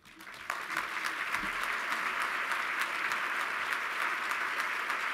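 Audience applauding, swelling quickly over the first half second and then holding steady.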